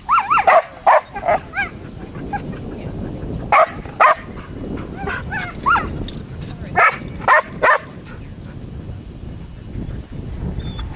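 A dog barking and yipping in three bursts of short, sharp calls: several near the start, more a few seconds in, and a last few about two-thirds through.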